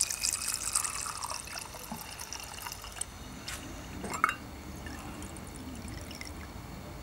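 Alcohol poured into a small glass jar over metal lighter parts, splashing for the first second or so. Then small drips and ticks of the liquid, with one sharp tap about four seconds in as the parts are handled in the jar.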